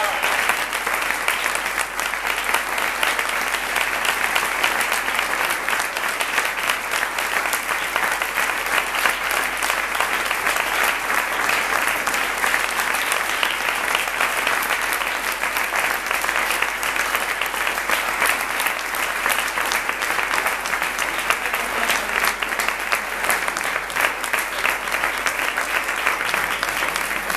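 Theatre audience applauding, a dense, steady clapping that holds at an even level.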